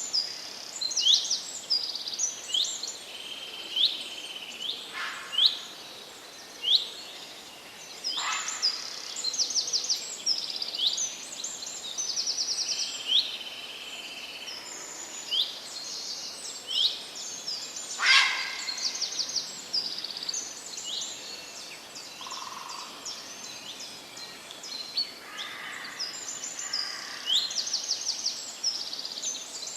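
Birdsong in a forest: several songbirds chirping and trilling, mostly quick high downward-sweeping notes and rapid trills, with a few lower calls, over a faint steady background hiss.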